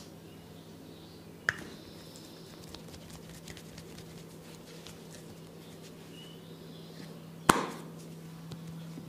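Two sharp, short cracks from the massage, a small one about a second and a half in and a much louder one near the end, over a faint steady low hum.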